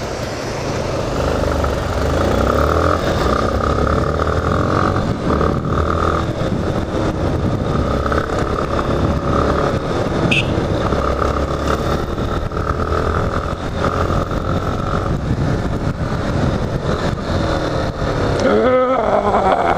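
Yamaha Lander XTZ 250 single-cylinder motorcycle engine running while riding, with wind noise; the engine pitch rises and falls with the throttle, with quick revs near the end.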